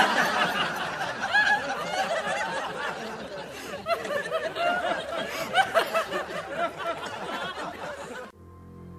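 People laughing and giggling, with a little chatter mixed in. It cuts off suddenly near the end and quiet music comes in.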